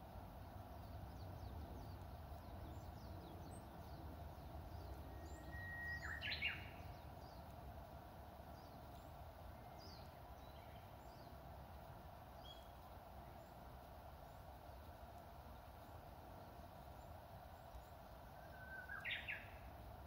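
Japanese bush warbler (uguisu) singing its 'hoo-hokekyo' song twice: a held whistle that breaks into a quick rising and falling flourish, about six seconds in and again near the end. Faint high chirps of other small birds come in between.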